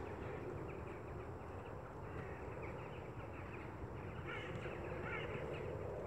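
Steady outdoor background noise, with faint distant calls about half a second in and again past four seconds.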